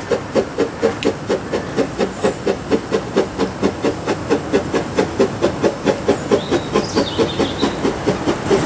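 Ffestiniog Railway locomotive No. 2 Prince, an 1863 George England narrow-gauge saddle-tank steam engine, working under steam with a quick, even chuff from its chimney, about four to five exhaust beats a second, over a steady hiss of steam.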